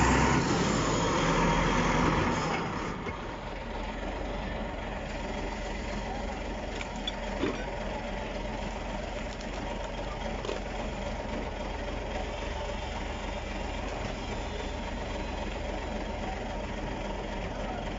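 Heavy diesel earthmoving machinery running: loud close beside an SD16 crawler bulldozer for the first two seconds or so. It then drops to a steady, quieter engine drone. A single short click comes about seven and a half seconds in.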